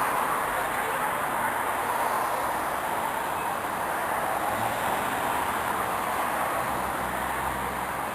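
Steady noise of road traffic passing, with a faint low engine hum near the end.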